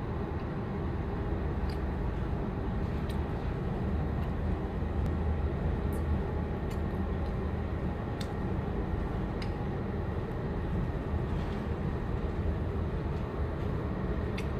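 Steady low rumble aboard a cargo ship underway at sea, with a few faint ticks scattered through it.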